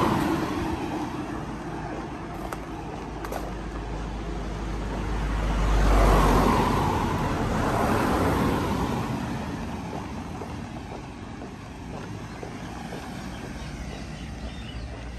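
Motor vehicles passing close by on a narrow road: a van, then cars, their tyres and engines rising and fading as each goes past. The loudest pass comes about six seconds in, with a deep rumble, and another follows near eight seconds.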